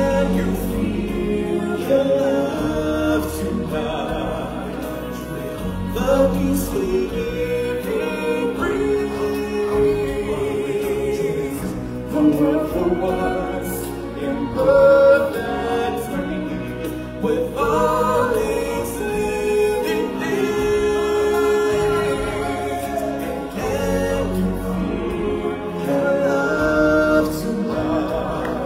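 Live stage-show music: singers and a choir-like blend of voices over the accompaniment, steady throughout.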